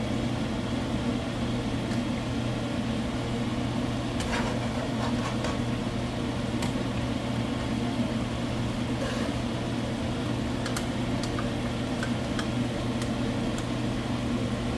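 Steady motor hum of a kitchen exhaust fan, with a few light clicks of a metal spoon scraping solid desi ghee out of a cup into the pan.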